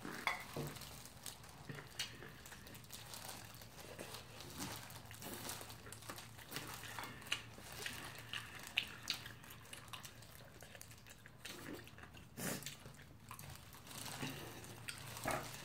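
Eating sounds from fried chicken eaten by hand in disposable plastic gloves: scattered bites, chewing and glove crinkles, over a faint steady low hum.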